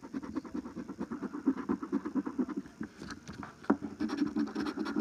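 A coin scratching the coating off a paper scratch-off lottery ticket in rapid, short back-and-forth strokes.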